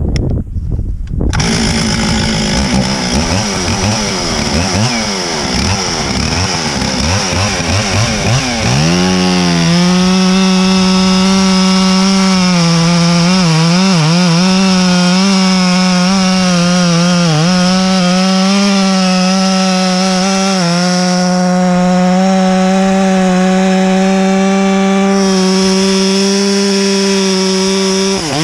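Stihl 044 two-stroke chainsaw with a long bar cutting into a big log of hard Osage orange. The engine starts up about a second in and runs at uneven revs for several seconds. It then holds a steady high pitch under load, with brief dips as the chain bites, and the revs drop right at the end.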